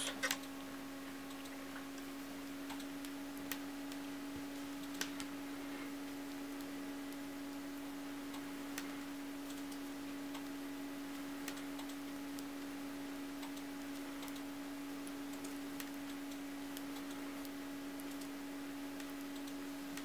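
Metal knitting needle tips clicking softly and irregularly as stitches are knitted, a few scattered ticks over a steady low hum.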